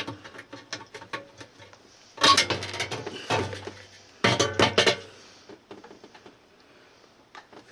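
Metal and glass parts of a gas water heater's combustion chamber clinking and knocking as they are handled and fitted, in two dense clusters about two and four seconds in, with lighter scattered clicks after.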